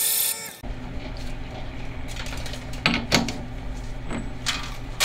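Metal lathe running, with a twist drill cutting through a ductile cast iron bar, which stops about half a second in. Then a steady low hum with a few metal clicks and clunks as the bar is handled in the lathe's three-jaw chuck, the loudest around three seconds in and near the end.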